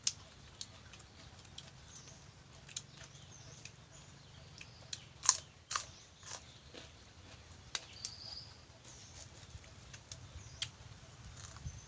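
Scattered light clicks and knocks of someone eating, with chewing. One louder click comes about five seconds in, and faint high bird chirps sound in the background.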